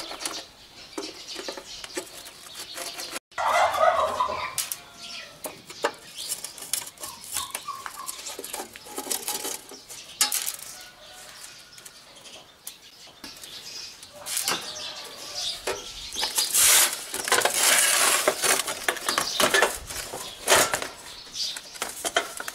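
Screws being backed out and the sheet-metal case of a small Wel-D inverter stick welder being handled and lifted off: scattered metal clicks, rattles and scrapes, busiest in the second half. Chickens cluck in the background.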